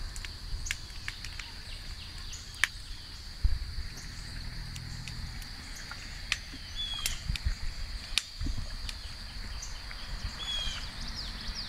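Outdoor ambience: a steady, high insect drone like crickets, with two short bird chirps and scattered small clicks over a low rumble.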